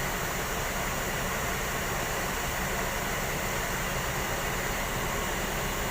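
Steady mechanical hum with an even hiss; no horn sounds.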